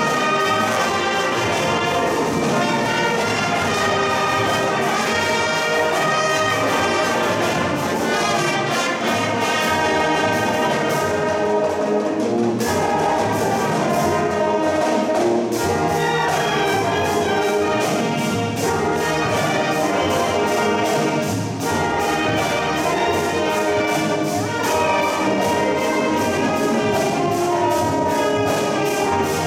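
Marching band playing, with the brass carrying the music in a full-ensemble passage.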